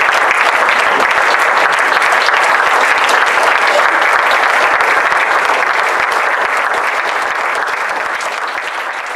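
Audience applauding, a dense, steady clapping that slowly fades away over the last few seconds.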